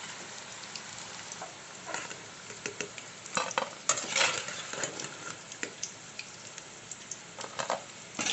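Cornflour-coated paneer cubes sizzling in hot oil, with scattered scrapes and clinks from a slotted spatula in the pan as the fried cubes are scooped out.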